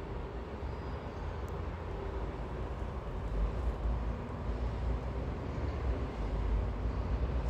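Steady low rumble of distant city road traffic, with no distinct events.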